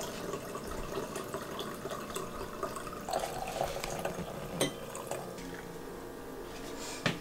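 Red wine poured from a glass bottle into a stemmed wine glass, a steady liquid pour with a couple of light glassy clicks.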